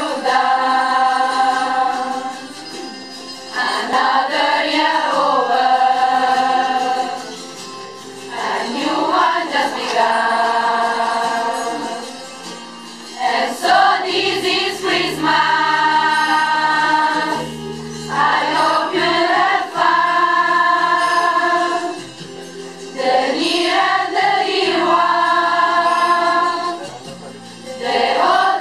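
A school choir of mostly teenage girls singing together in long phrases with held notes, breaking off briefly between phrases every few seconds.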